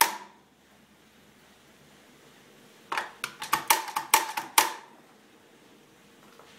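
Doser lever of a dosage-chamber coffee grinder snapped back and forth, about ten sharp metallic clacks in quick succession, starting about three seconds in, as the dosage chamber is emptied of old ground coffee.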